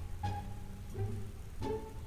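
Background music played on strings, with three distinct notes starting about two-thirds of a second apart.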